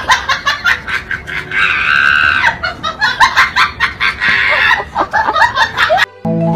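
Fast, choppy high cackling with a held scream about two seconds in.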